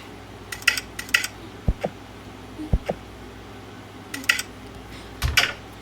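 Light clicks and taps, mostly in quick pairs, every second or so over a faint low hum.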